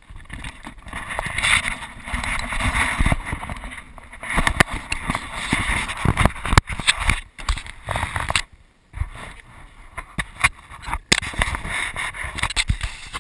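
Wind buffeting a GoPro's microphone in gusty swells, mixed with rubbing, clicks and knocks as the camera is handled and fitted.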